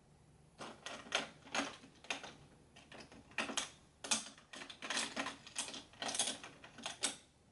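An irregular series of short taps and brushing strokes, about one to two a second, from makeup tools and products being handled and applied.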